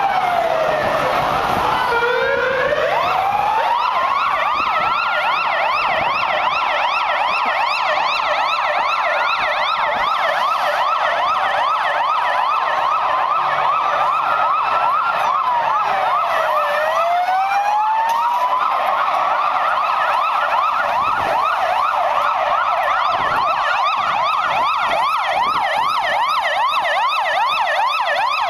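Electronic sirens of Mossos d'Esquadra police vans, more than one at once: a slow wail that falls and rises in the first few seconds, then rapid yelp sweeps that carry on, with another slow wail cutting across them around the middle.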